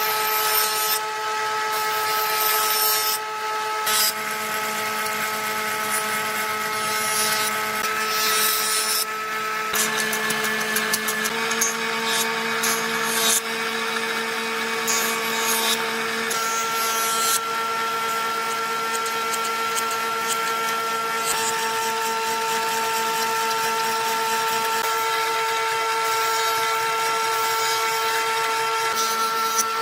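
Woodworking jointer running with a steady motor and cutterhead whine while short wooden strips are pushed across it, each pass adding a rasping cutting noise that comes and goes every second or two.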